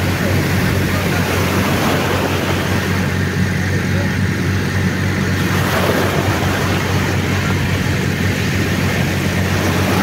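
Tractor engine running steadily as it hauls a beach seine net, a constant low hum over the wash of breaking surf.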